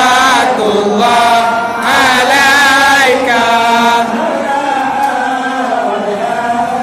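Group of men chanting together in unison, a devotional Maulid chant sung in long drawn-out notes that waver in pitch; it gets a little quieter after about four seconds.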